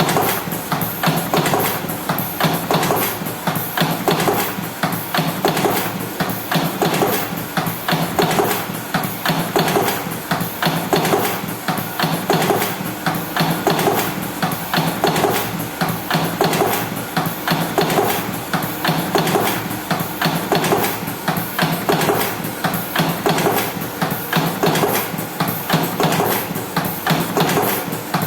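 Electric cigarette rolling machine running, a fast, steady mechanical clatter of many rapid clicks with a cycle that repeats about once a second.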